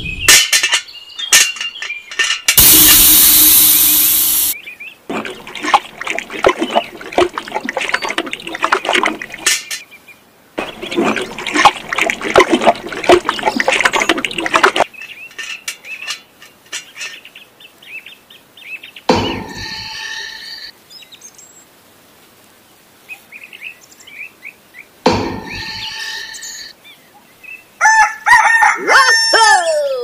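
Scraping and crackling of a small batch of wet cement mix being poured and worked with small tools, with a loud rushing pour a few seconds in. Later come two drawn-out bird-like calls and some quick chirps.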